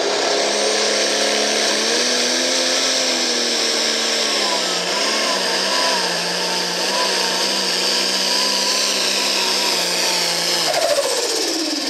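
Pulling tractor's diesel engine running flat out as it drags a weight-transfer sled, with a high whine over it. The engine pitch drops about four seconds in as it labours under the load, holds there, then winds down near the end as the pull ends.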